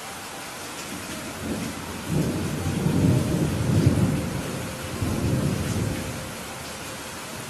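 Thunder rolling over steady heavy rain: a low rumble builds about a second and a half in, peaks around the middle, swells again and fades out, while the rain hiss continues underneath.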